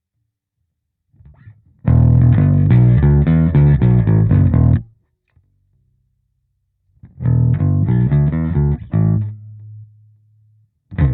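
Electric bass (a Squier Precision Bass with a DiMarzio Model P pickup) played through a Hiwatt Bulldog 440 bass amplifier. A quick riff of many notes runs for about three seconds, then there is a pause. A second phrase follows and ends on a held low note that fades away, and a new phrase begins at the very end.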